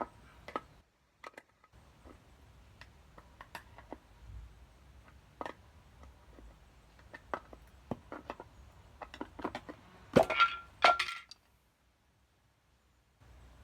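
Scattered light metallic clinks and taps of tools and hub parts being handled, with a louder clatter about ten seconds in.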